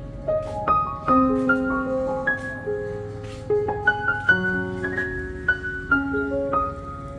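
Background piano music: a melody of struck notes and chords, a few per second, each ringing on as it fades.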